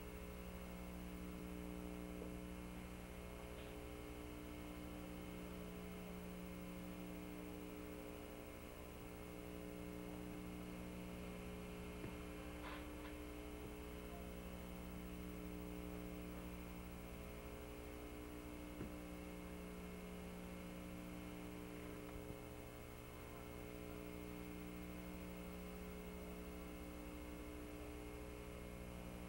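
Faint steady electrical mains hum, with a few faint ticks.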